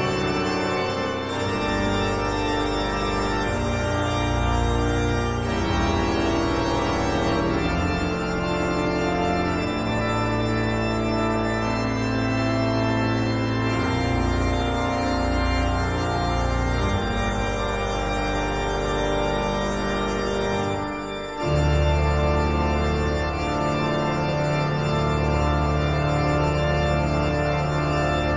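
Slow organ music: sustained chords that change every few seconds, with a deeper bass coming in about three-quarters of the way through.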